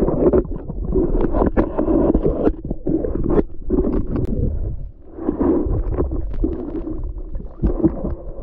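Muffled water swishing and scattered knocks heard through an underwater GoPro Hero 8 Black as it is moved about in a shallow pond, over a low rumble; the swishing drops away briefly about five seconds in, then picks up again.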